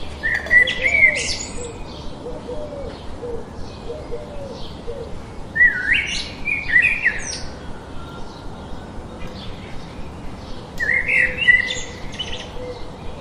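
Birds singing and chirping: three louder, sweeping song phrases, about a second in, around six seconds in and near eleven seconds, over a steady background of quick, repeated chirps.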